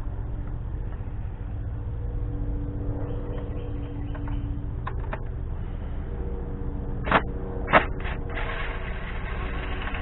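Hand tools working on the engine's coil-pack cover: a 7mm socket wrench gives a few sharp metallic clicks and knocks, the loudest about three quarters of the way in, then a rasping stretch near the end. A steady low rumble runs underneath.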